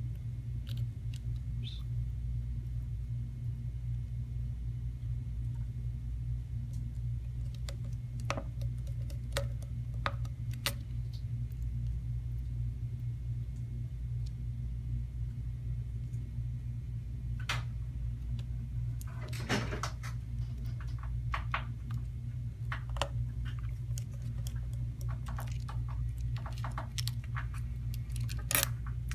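Scattered light clicks and taps of a small screwdriver and tiny screws on an opened iPod Touch as its screws go back in, over a steady low hum. The clicks come more often in the last third.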